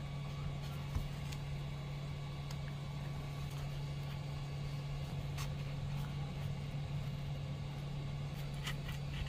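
A steady low hum, with a few faint clicks and scrapes as a thin plastic opening card is worked along the seam of a Vivo V21 5G's back cover to pry it loose from the frame.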